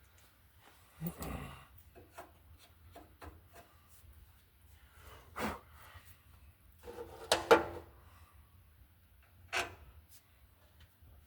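Scattered knocks, scrapes and clanks of tools and parts being handled, with the loudest pair of knocks about seven and a half seconds in.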